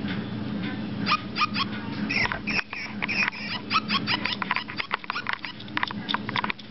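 Micropets toy dog sounding through its tiny speaker: a rapid run of short electronic chirps and yapping barks, over a low steady hum.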